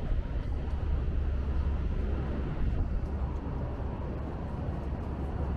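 Urban street ambience: a steady low rumble of city background noise with passing traffic.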